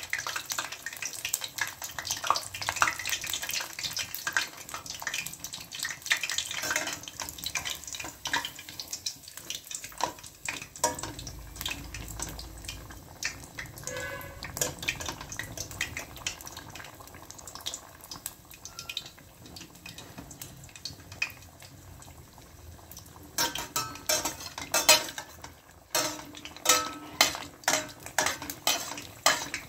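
Bread pakora sizzling in hot oil in a steel pot, with a steel slotted spoon clinking and scraping against the pot as it turns the pakora. The clinks come quicker and louder over the last few seconds, at about two a second.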